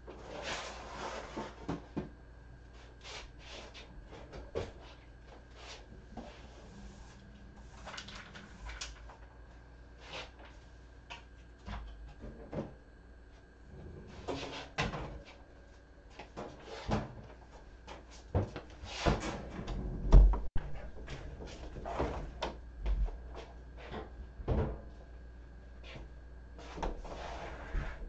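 Scattered clunks, knocks and rustles of things being handled and dropped into a metal step trash can, its lid opening and closing. One sharp knock about twenty seconds in is the loudest. A faint steady hum runs underneath.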